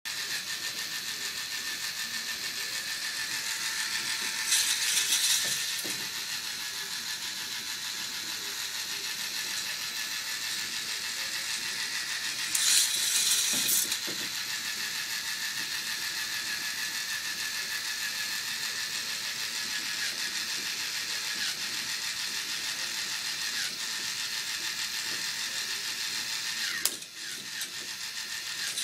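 K'NEX roller coaster's motorized chain lift running, a steady fast ratcheting clatter of plastic chain and gears. Two louder rushing passes come through, about five and thirteen seconds in.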